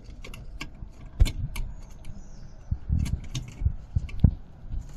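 A scatter of small clicks and knocks as a headlight bulb's metal base is worked into the plastic headlight housing of a Smart fortwo. Two sharper clicks stand out, about a second in and near the end.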